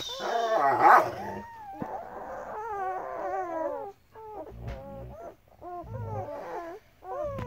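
Week-old German Shepherd puppies whimpering and squealing while they nurse: many short, high calls that bend up and down one after another, loudest about a second in. A few short low rumbles come in near the end.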